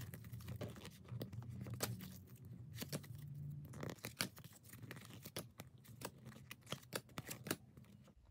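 A stack of 1993-94 Skybox Premium basketball trading cards flipped through by hand, the stiff cards sliding and snapping against each other in a quick, uneven run of faint clicks and scrapes.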